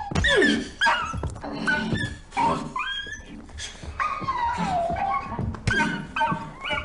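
A dog yelping and whining, with repeated high cries that rise and fall in pitch and dull thuds between them.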